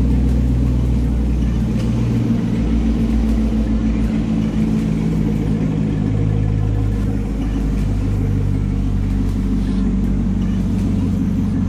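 C5 Corvette's V8 engine idling steadily, with a deep low rumble that shifts slightly in pitch a couple of times.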